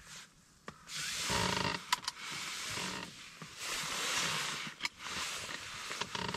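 Small electric wakasagi reel whirring in short bursts of about a second each, with a few sharp clicks between them.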